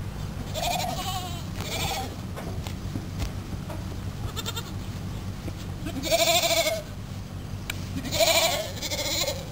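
Goats bleating, about five separate calls, the two loudest and longest in the second half.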